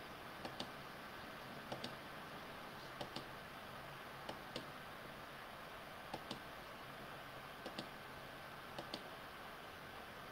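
Computer mouse clicking seven times, about every second and a half, each click a quick pair of ticks, against a faint steady hiss.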